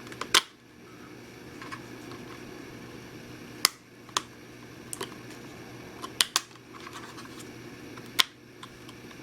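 Sharp little clicks and light knocks, about eight of them spaced irregularly, as a laptop SO-DIMM RAM module is pressed into its slot and snapped down into the retaining clips.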